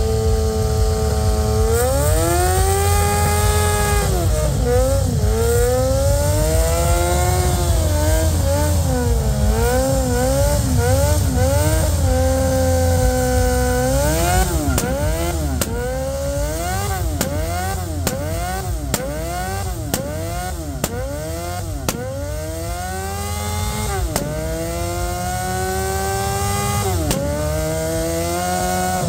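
A motorcycle engine being revved over and over: it holds a steady speed, then the throttle is blipped in quick rise-and-fall bursts, with a few longer climbs. A few short sharp cracks stand out in the middle, over a steady low engine rumble.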